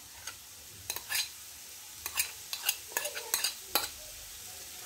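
Metal spoon scraping and clicking against small bowls while scooping sticky mustard onto raw chicken pieces: a run of irregular short clicks and scrapes.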